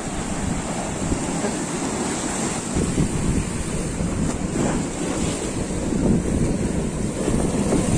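Sea surf breaking and washing over shoreline rocks, with wind buffeting the microphone.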